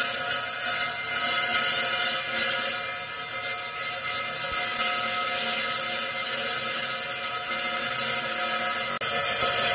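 Covington Engineering lapidary saw's diamond blade cutting into a slab of labradorite, hand-fed: a steady whir with a high hiss of the stone being cut.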